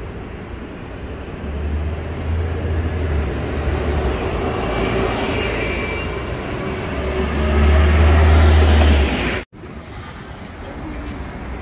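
Road traffic on a city street, vehicles passing with a low rumble that swells loudest about three quarters of the way through, then the sound cuts off abruptly and picks up again quieter.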